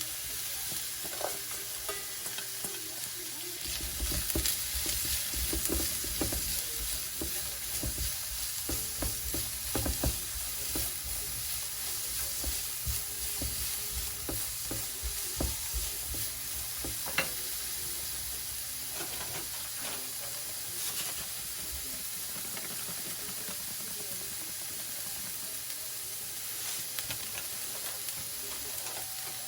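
Food sizzling in a frying pan, a steady hiss, with a utensil stirring and knocking against the pan. The knocking stops about halfway through and the sizzle carries on.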